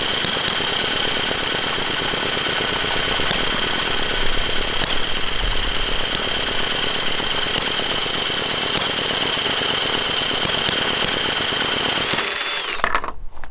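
Cordless drill whining steadily as it spins a Jerry Howell model V-twin petrol engine over, with a fast irregular clatter of the engine trying to fire without catching; the drill winds down and stops near the end. The engine is spitting fuel, which the builder puts down to flooding from a fuel tank set too high.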